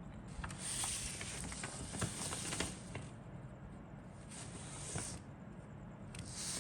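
Rustling and crinkling of plastic and paper as model kit contents are handled, in two main bursts with a few light clicks, over a low steady hum.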